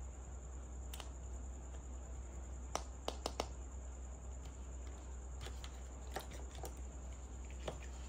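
Light clicks and taps of a small plastic toy plate and a sticker sheet being handled, with a quick run of four clicks about three seconds in and scattered single clicks later. A steady low hum and a faint high whine run underneath.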